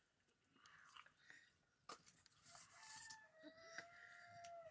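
A rooster crowing once, faintly, with one long held note that begins about three seconds in. A few faint clicks come before it.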